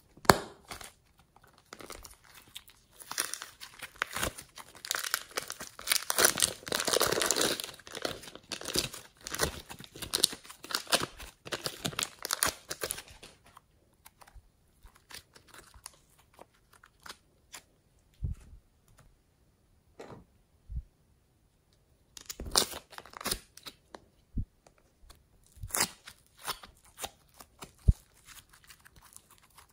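Hands kneading, squeezing and pulling apart soft modelling clay and slime, giving crackling, tearing sounds. The crackling is dense for the first half, then comes in short bursts.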